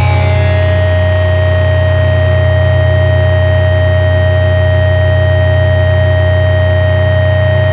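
Sludge/doom metal drone: a heavily distorted guitar and bass chord held steadily, with high feedback tones held over it and no drum hits.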